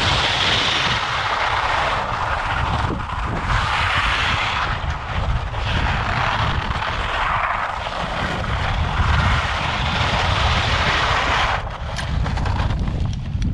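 Skis sliding fast over wind-crusted snow with a steady scraping hiss, under a rumble of wind buffeting the microphone. Near the end the hiss drops away and a few sharp clicks follow.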